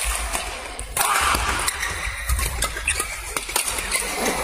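Badminton rackets striking the shuttlecock in a quick doubles rally, a string of sharp hits at uneven intervals, over a steady low hum in the hall.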